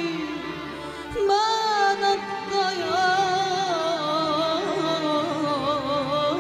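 Female vocalist singing a long, ornamented Arabic melodic phrase with wide vibrato, backed by a string orchestra. A new phrase begins about a second in.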